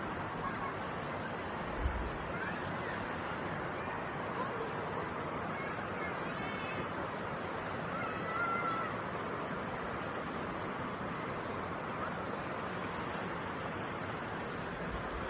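Running water making a steady, even rush, with a brief low thump about two seconds in.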